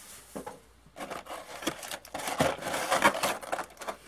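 Hands handling a clear plastic blister tray, a dense, irregular run of crinkles, rubs and small clicks starting about a second in.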